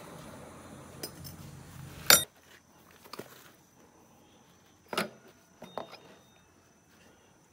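Yamaha NMAX scooter engine and CVT running at idle, cutting off suddenly with a sharp click about two seconds in. A few light metallic clinks follow.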